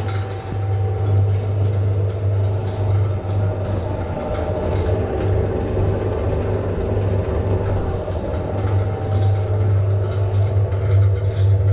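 Sigma Silver 120 spiral dough mixer starting up and running empty at low speed, its bowl and spiral-hook motors giving a strong, steady low hum with a busier mechanical running sound above it.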